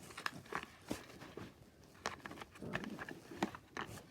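Scattered light clicks and taps of small craft items, such as a rubber stamp and its mounting block, being picked up and set down on a work surface.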